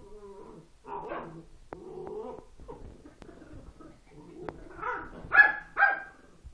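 Two dogs at play, a beagle puppy and a small terrier cross: low growly vocalising through the first couple of seconds, then two short, sharp yips about half a second apart near the end.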